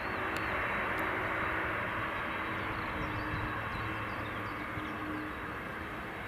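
Boeing 767-200ER jet airliner on its landing roll just after touchdown: its engines make a steady rush of jet noise with a faint engine hum underneath, easing a little toward the end.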